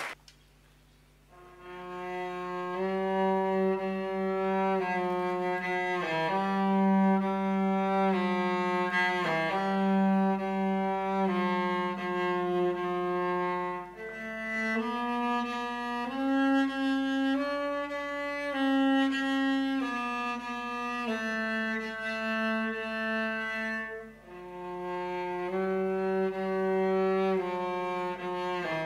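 Two cellos playing a slow piece in long bowed notes, one line moving over a held lower note. The playing begins about a second and a half in and breaks off briefly about three-quarters of the way through.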